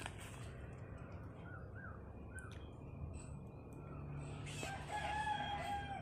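A rooster crows once near the end, one long held call. A few short bird chirps come earlier.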